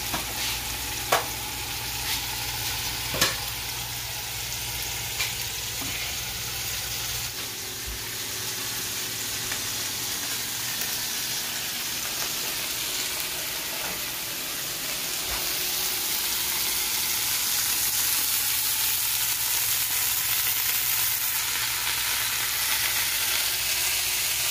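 Chicken tenders pan-searing in oil in a nonstick skillet on turned-up heat: a steady sizzle, growing a little louder in the second half. A few sharp clicks sound in the first few seconds.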